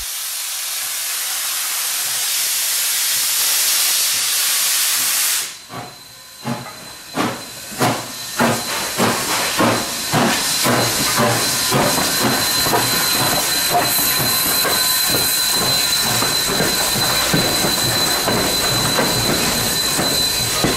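China Railways SY-class 2-8-2 steam locomotive approaching with a loud hiss of escaping steam that cuts off suddenly about five seconds in. A rhythmic clatter of chuffs and wheel beats follows, quickening as the engine and its passenger coaches roll past, with a thin high squeal joining in.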